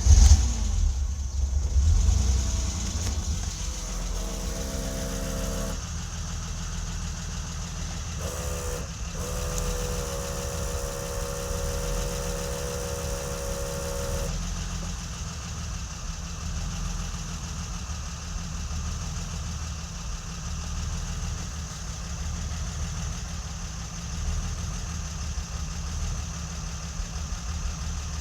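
BMW E30's M20B27 2.7-litre straight-six catching just after starting, flaring for a couple of seconds, then idling steadily. A faint pitched hum comes and goes in the middle.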